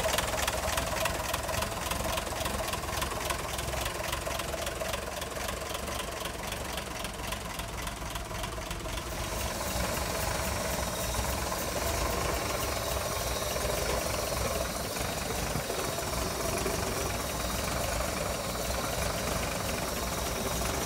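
Inline-six engine of a 1958 Ford truck idling with a fast, even valve-train clatter, the clackety of one valve whose lash was way out of adjustment. About nine seconds in it cuts to the same engine running after the valves were set to about 19 thousandths lash, the ticking less sharp.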